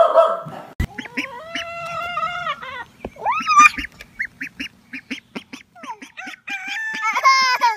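A young white duck calling: a long held call, then a rising cry, a run of short evenly spaced peeps, and a louder string of calls near the end.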